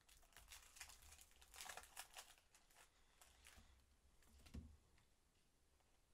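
Faint crinkling and clicking of a trading-card packet and its cards being handled, busiest over the first few seconds, with one soft knock about four and a half seconds in.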